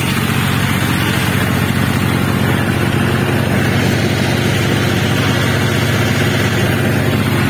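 John Deere 5310 tractor's three-cylinder diesel engine running steadily at about 1,800 rpm under load, driving a straw reaper through heavy combine straw. The engine holds its speed without any clutch work.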